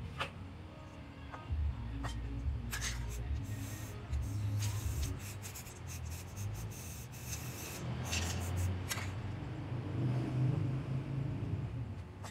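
Aerosol spray-paint can hissing in several short bursts.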